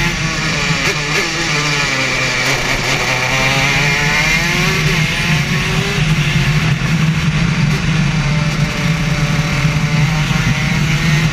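Racing kart engine heard from on board at speed. Its pitch falls over the first couple of seconds, climbs again from about three seconds in, and then holds high as the kart drives on.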